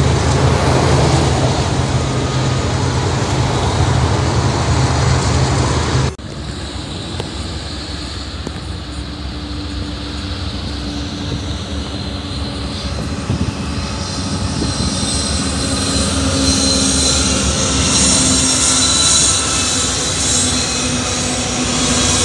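Diesel freight locomotives passing close with a steady, loud engine drone, which cuts off sharply about six seconds in. A quieter rumble follows as a second freight train led by Norfolk Southern and BNSF diesel locomotives approaches, growing louder, with a high-pitched wheel squeal building in the last several seconds.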